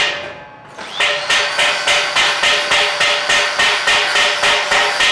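Angle grinder with an abrasive disc grinding a cast aluminium fan hub. It fades briefly near the start and spins back up about a second in, then grinds with a steady whine that pulses about four times a second as the disc bites.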